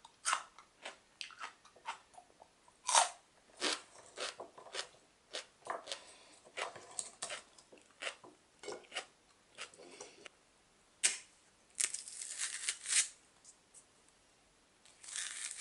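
Chef's knife chopping crisp celery on a wooden cutting board: a run of irregular crunchy cuts and knocks of the blade against the board. After about twelve seconds come two longer rasping, rustling sounds.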